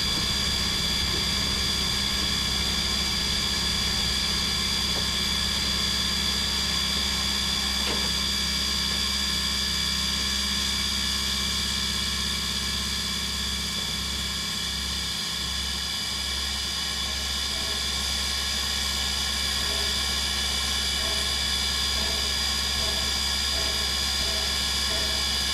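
1910 Swedish E2 steam locomotive heard from the top of its boiler: a steady hiss of steam with several high, even whining tones over a low rumble.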